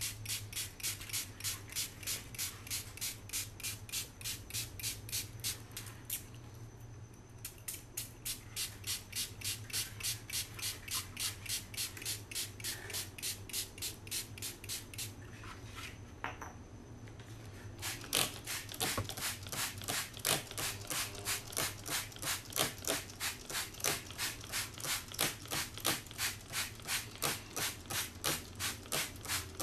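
Hand-held trigger spray bottle squeezed over and over, about three short spray hisses a second, misting liquid onto a plastic hard hat. The spraying pauses briefly twice, then goes on at the same rapid pace.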